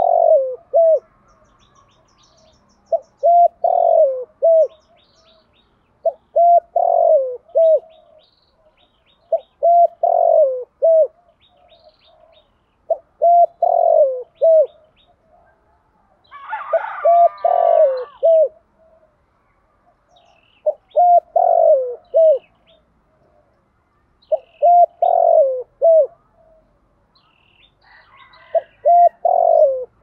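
Spotted dove cooing: short phrases of a few low coos, repeated about every three and a half seconds. A higher call overlaps one phrase about halfway through.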